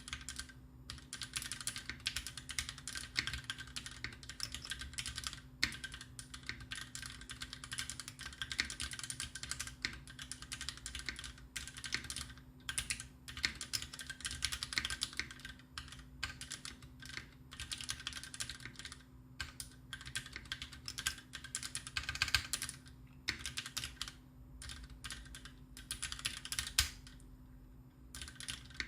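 Typing on a custom Taichi TKL mechanical keyboard with lubed Greetech Black linear switches and GMK cherry-profile keycaps: fast, continuous key clacks broken by a few short pauses.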